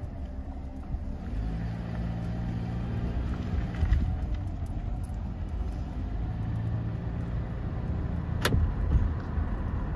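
Car driving on a paved road, heard from inside the cabin: a steady low hum of engine and tyres, with one sharp click near the end.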